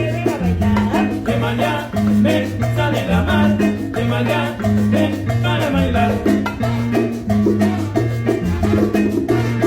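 Latin dance music played loudly through a sonidero sound system, with a heavy repeating bass line under a lively melody.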